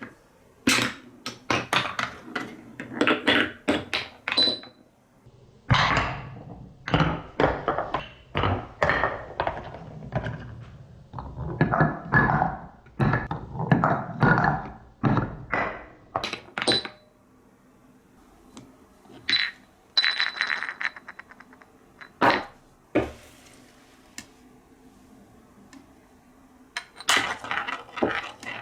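Marbles knocking and clattering along a wooden marble run, in quick bursts of hard clicks and thunks separated by short pauses.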